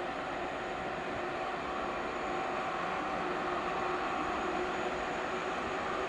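Distant electric trains running along the line, a steady wash of rolling noise with a faint held whine, slowly getting louder.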